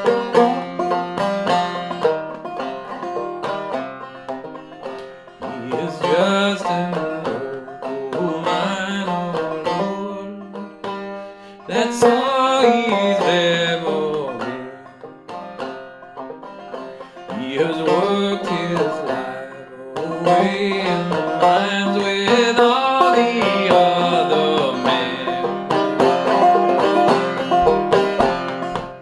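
Five-string banjo played clawhammer style in fCFGC tuning: a steady, driving pattern of struck single notes and brushed strums, getting louder and quieter from phrase to phrase.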